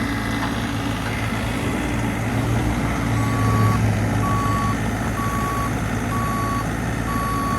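Bobcat E42 mini excavator's engine running with a steady low hum. About three seconds in, its motion alarm starts: single-tone beeps about once a second.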